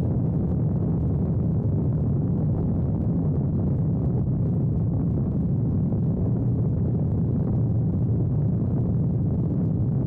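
Desert Aircraft DA-100 twin-cylinder two-stroke petrol engine of a giant-scale RC biplane running steadily, heard up close from on board as a loud, even, low drone.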